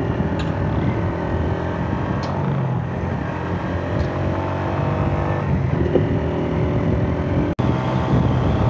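Honda CG 125's single-cylinder four-stroke engine running steadily while the motorcycle cruises, heard from the rider's position on the bike. The sound drops out for an instant about three-quarters of the way through, then carries on.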